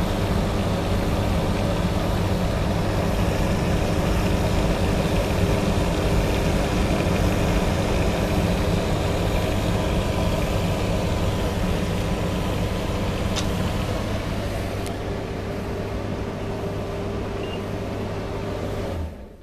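LG TD-C70040E condenser tumble dryer running steadily on its replacement drive motor, with the back cover off: a low motor hum and drum-drive noise with no squeal. It cuts off suddenly near the end.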